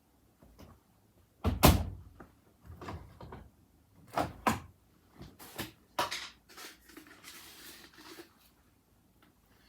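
Washing machine doors and detergent drawers being opened and shut: a loud knock, then a run of clicks and knocks and a short scrape.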